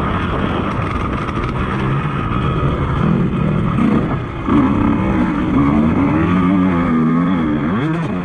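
KTM motocross bike's engine revving under hard riding, its pitch rising and falling with the throttle. It climbs steadily at first, then swings up and down several times in quick succession from about halfway through.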